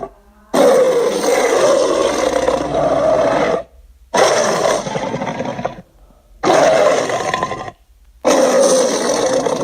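Tyrannosaurus rex roar sound effect: four roars in a row, each one to three seconds long and cut off abruptly, with short gaps between them.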